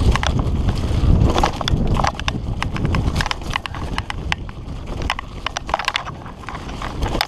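Fully rigid Redline Monocog singlespeed mountain bike clattering down a dirt trail: a quick, irregular run of sharp knocks and rattles as the bike bounces over the ground. Under it runs a low rumble of wind on the helmet-mounted camera's microphone, heaviest in the first two seconds.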